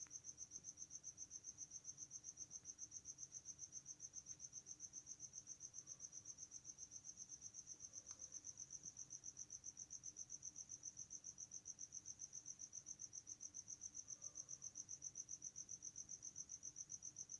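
A cricket chirping faintly and steadily, a high trill pulsing about five times a second.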